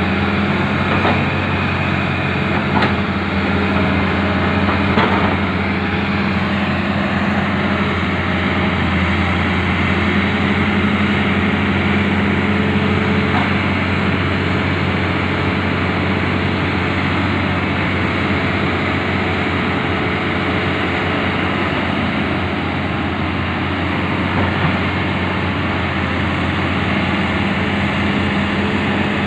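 Hitachi crawler excavator's diesel engine running steadily under load as the machine drags itself forward out of mud with its bucket. A few light knocks in the first five seconds.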